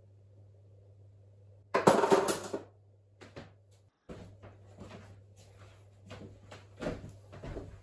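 A sudden loud clatter about two seconds in, then a run of irregular knocks and clicks, like drawers or cupboard doors banging, over a steady low hum.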